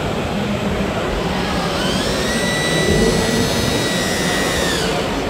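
Electric motor whine of an RC model yacht, rising in pitch about two seconds in, holding steady, then winding down near the end, over a steady hum of hall and crowd noise.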